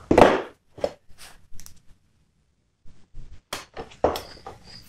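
Metal clunks and clicks of a socket and torque wrench being fitted onto bolts in a steel test plate, the loudest clunk about a quarter second in. Near the end a run of short, high beeps starts, about three a second, from the digital torque meter.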